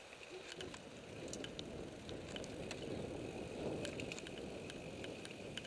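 Mountain bike riding down a dry dirt trail: a rough rumble of tyres over the dirt with scattered sharp clicks and rattles from the bike. The rumble swells toward the middle of the stretch.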